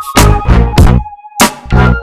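Background music with a steady beat that drops out briefly about a second in, leaving one held note.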